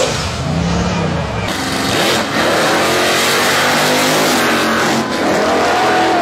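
Drag-racing cars launching hard at full throttle, engines revving and gliding up in pitch with gear changes. From about a second and a half in, a supercharged muscle car launches off the line.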